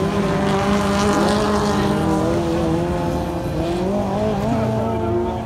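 Autocross race cars' engines running hard on a dirt circuit, several at once, their pitches rising and falling as the drivers accelerate and lift.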